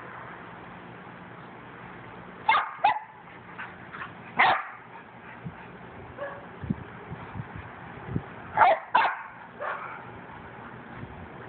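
Two dogs play-fighting and barking at each other. There are two quick barks about two and a half seconds in, another a couple of seconds later, and a sharp pair near the end, with fainter barks in between.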